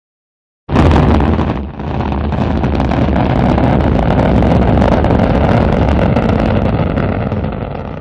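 Rocket engine firing sound effect: a sudden loud start about a second in, a brief dip, then a steady rumble that fades out near the end.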